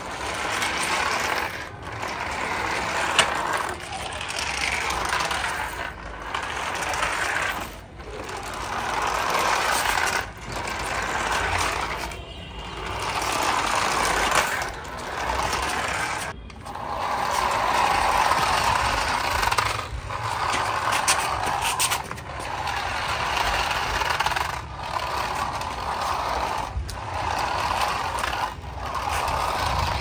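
Toy RC cars' small electric motors and plastic gearboxes whirring as they drive over rough concrete, running in spurts of a second or two and stopping briefly between them.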